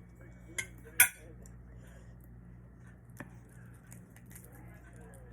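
Three sharp clinks of eating utensils against a dish, the loudest about a second in, over a steady low electrical hum.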